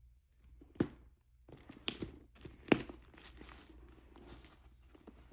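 A handbag and its wrapping being handled: crinkling and rustling, with two sharp clicks, one about a second in and one near three seconds in.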